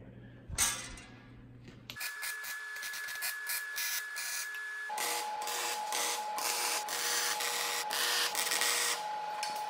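MIG welding arc crackling and spitting steadily on steel square tubing, starting about two seconds in after a short clatter. A faint steady whine sits under it and shifts in pitch about five seconds in.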